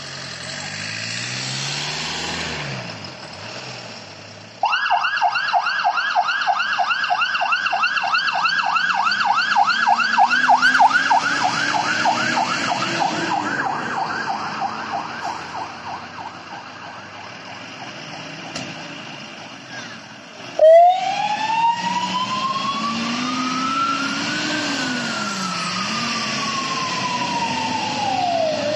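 Mercedes Atego fire engines leaving on an alarm call: diesel engine revving as a truck pulls away, then a fast yelping siren that fades after about twelve seconds. About twenty seconds in a sharp loud burst is followed by a slow wailing siren that rises and falls.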